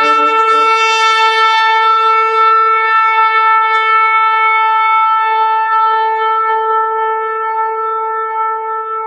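Shofar blown in one long, unbroken blast held at a single pitch, fading slightly near the end.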